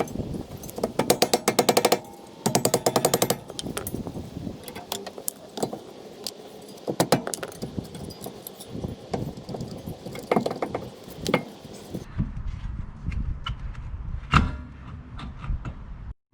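A 3/8-inch air ratchet running in two short bursts of rapid clicking, undoing the bolts that hold the rear hub-and-bearing assembly to the axle. Scattered clinks and knocks of tools and metal parts follow, with one sharp, loud knock near the end.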